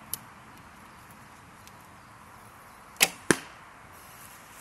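A shot from a White Feather Wingz Carbon Korean-style horsebow drawn with the thumb technique: a faint click as the carbon arrow is nocked near the start, then about three seconds in the sharp snap of the string's release and a second sharp knock a third of a second later.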